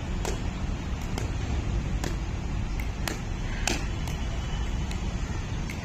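Pickleball paddles striking a plastic pickleball in a fast-hands volley drill: a series of sharp pops at uneven intervals, some close together, over a steady low rumble.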